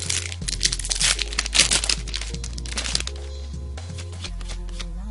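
Foil trading-card booster wrapper crinkling as it is handled and the cards are pulled out, dense and crackly for about the first three seconds, then easing off, over background music.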